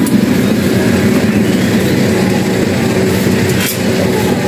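Cherry-tomato grading machine running: a steady mechanical hum with a few light clicks as tomatoes drop through its chutes.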